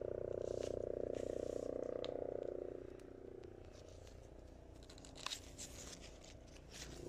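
A steady low hum fades away about three seconds in, followed by brief rustling in dry leaf litter.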